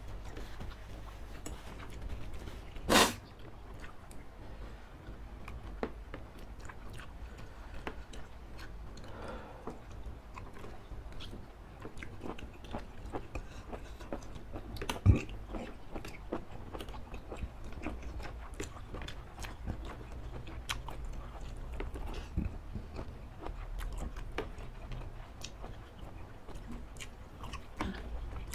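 Close-miked eating of spicy laksa noodle soup with squid: steady chewing with many small wet mouth clicks, and broth sipped off a spoon. There is one loud, short noise about three seconds in and a sharp knock about fifteen seconds in.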